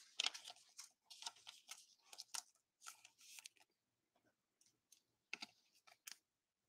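Faint rustling and light clicking of glossy trading cards and a thin plastic card sleeve being handled, with a few sharper clicks near the end.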